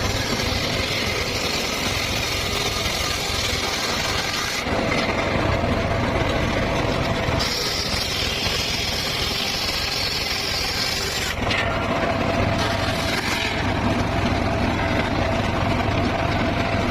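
Circular saw running continuously with a steady low hum while cutting teak and mahogany. Its sound shifts several times, and a brighter high hiss runs through the middle stretch as the blade bites into the wood.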